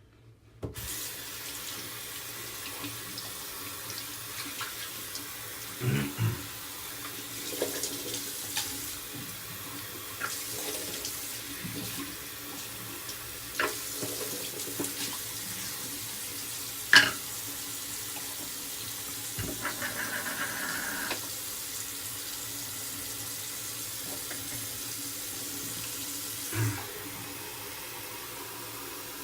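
Water tap running steadily into a sink, turned on just after the start, with a few short knocks and clicks over it; one sharp click about halfway through is the loudest.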